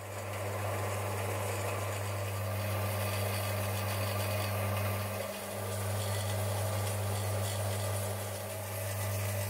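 Small metal-cutting band saw running with a steady low motor hum, its blade cutting through brass bar stock with a rasping hiss. The sound dips briefly about five seconds in.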